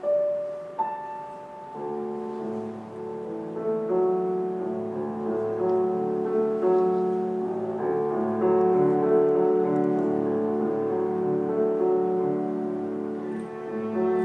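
Grand piano playing a slow classical passage on its own: a few single notes, then fuller sustained chords from about two seconds in. Near the end the cello comes back in.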